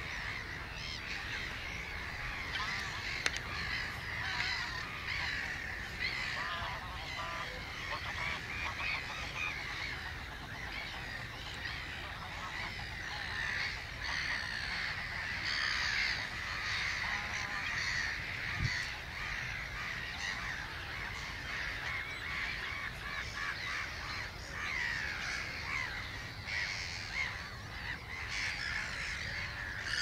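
Dawn chorus of waterbirds on a lake: many birds calling over one another without a break, with geese honking among them.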